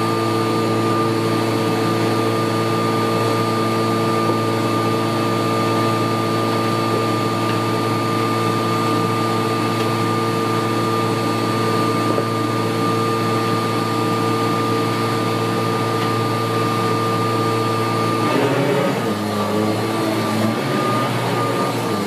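1981 Kirby Heritage 1 upright vacuum cleaner running steadily with a high motor whine. About eighteen seconds in, its sound turns wavering and uneven as it starts being pushed across the carpet.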